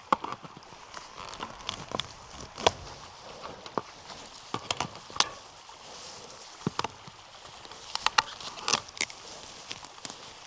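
Irregular sharp knocks and clicks from hand work on an old wire-and-post fence being torn down, the loudest about two and a half seconds in and a quick cluster near the end.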